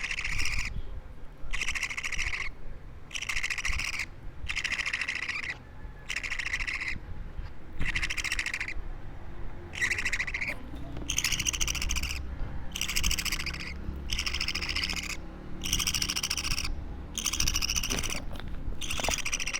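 A two-week-old budgerigar (parakeet) chick calling over and over: short raspy calls of about half a second each, coming roughly once a second with brief pauses between.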